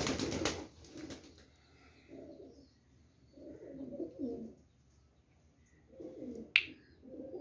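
Pigeons cooing: soft, low, murmuring calls that come every second or two. A short burst of wing-flapping comes at the start, and a single sharp click comes near the end.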